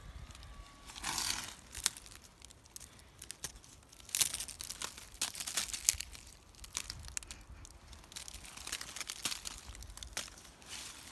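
Footsteps crunching and crackling through dry leaf litter and twigs on a forest floor, uneven, with the loudest crunches about a second, four seconds and six seconds in.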